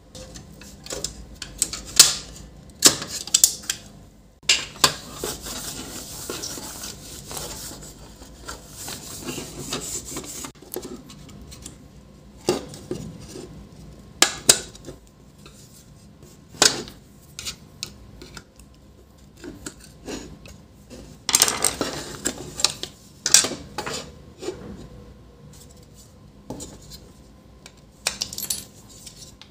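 The plastic housing of an HP LaserJet M501 laser scanner unit being taken apart by hand with a small screwdriver. Its cover clips are pried and released in a series of sharp clicks and clatters of plastic and metal, with a stretch of scraping a few seconds in.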